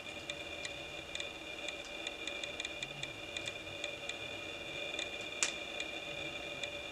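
Faint, scattered small ticks of tying thread being wrapped from a bobbin around dumbbell eyes on a fly hook, with one sharper click about five and a half seconds in. A steady faint high whine runs underneath.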